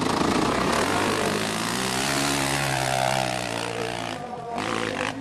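Dirt bike engine revving hard under load on a steep climb. It makes a loud, buzzing drone whose pitch sags and rises.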